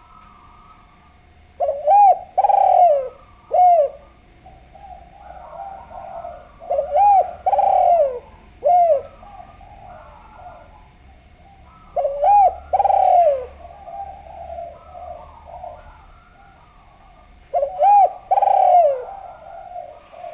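Spotted dove (derkuku, tekukur) cooing: four phrases about five seconds apart, each a couple of short coos followed by a longer one. Fainter cooing goes on between the phrases.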